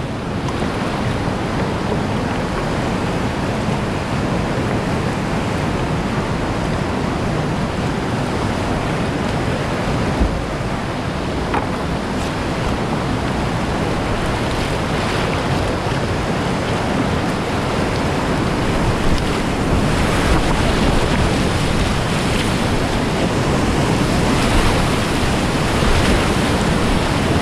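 Whitewater rapids rushing around a kayak: a steady, loud wash of moving water that grows a little louder about two-thirds of the way in.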